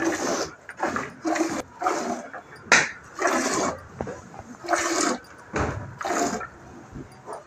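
Water buffalo being milked by hand: milk squirting from the teats into a steel bucket already partly full, one hissing spurt with each squeeze, about eight spurts with short, uneven gaps between.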